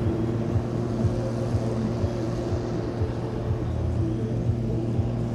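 Tractor diesel engines running steadily at low revs: a deep, even drone.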